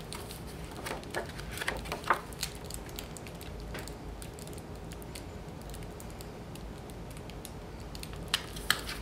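Paper being handled by hand: an adhesive-backed patterned paper panel laid onto cardstock and pressed flat with the fingers, giving a few soft rustles and light ticks in the first couple of seconds and again near the end.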